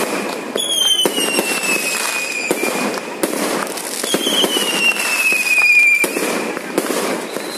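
Aerial fireworks display: shells bursting with continuous crackling and popping. Two long whistles from whistling fireworks fall slightly in pitch, one starting about half a second in and another about four seconds in.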